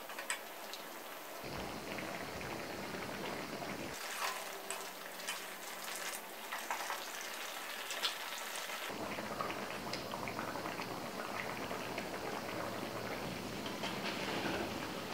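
Coconut-milk broth of chicken garang asam simmering in a wok: a steady bubbling with many small pops, its tone changing abruptly a few times.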